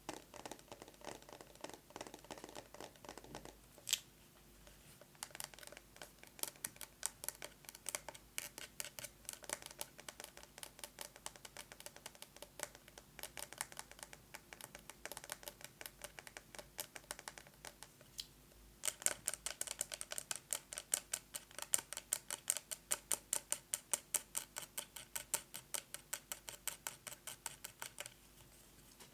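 Fast fingernail tapping on a plastic box with a metal cover: quick, even clicks several times a second, broken by a short pause, then a louder run of taps that stops near the end.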